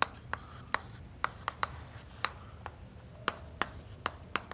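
Chalk writing on a chalkboard: a string of sharp little taps and scratches, about three a second, as each letter is struck and drawn.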